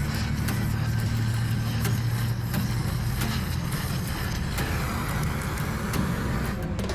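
Steady roar of a gas welding torch flame heating a cast aluminum rack-and-pinion housing for welding, over a steady low hum with scattered light clicks.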